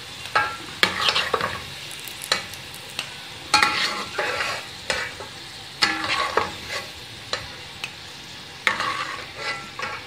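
A metal perforated skimmer scrapes and clinks irregularly against a metal pot as fried raisins, coconut and almonds are scooped out of the ghee. The hot ghee sizzles steadily underneath.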